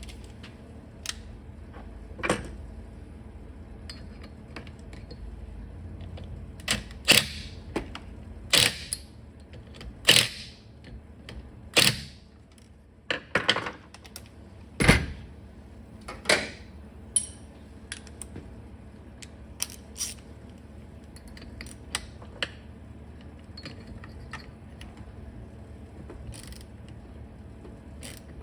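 Hand tools and metal parts clicking and knocking as a chainsaw is put back together, scattered single clicks with a run of louder knocks in the middle.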